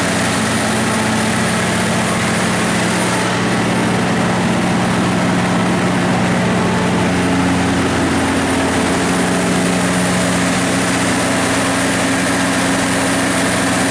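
Cummins NTA855-G3 turbocharged inline-six diesel of a 350 kW generator set, running steadily at its governed 1800 RPM while carrying a heavy electrical load of about 340 kW.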